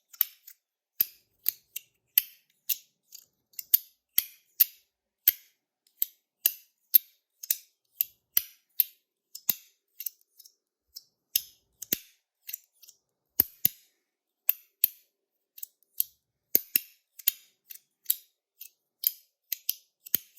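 Compoform V1.1 Mini slider fidget being slid back and forth, its slide snapping to the stops in sharp clicks, about two a second, sometimes in quick pairs, with a short lull near the middle.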